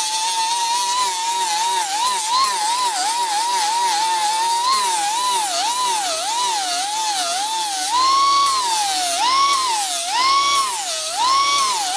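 Pneumatic die grinder with a 36-grit disc grinding into a fiberglass body panel: a high whine whose pitch dips and recovers again and again as the disc is pressed into the work and eased off. The dips grow deeper in the last few seconds.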